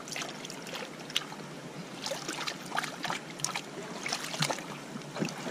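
Hands splashing and rubbing in shallow river water to scrub off a clay coating: a string of small, irregular splashes and swishes over the steady wash of the river.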